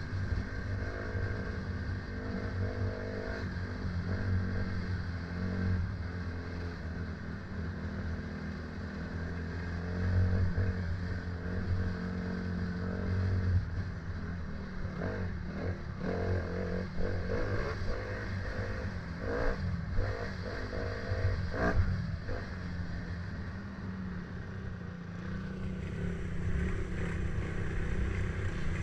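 Motor vehicle engine running steadily, with a cluster of short knocks and rattles about halfway through.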